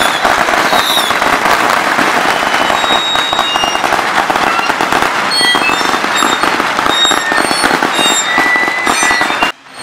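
Strings of firecrackers going off in a dense, continuous crackle of rapid pops, with a few short high whistles above it. The sound cuts out briefly near the end.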